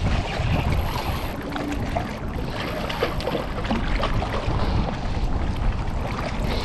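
Wind buffeting the microphone over water lapping, with scattered small knocks and splashes.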